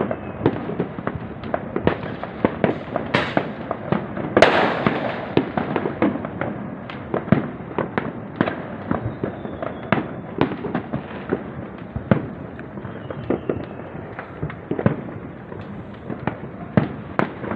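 New Year fireworks bursting in a dense, irregular string of bangs and crackles. Two louder bursts come about three and four and a half seconds in, the second trailing off in a crackling hiss.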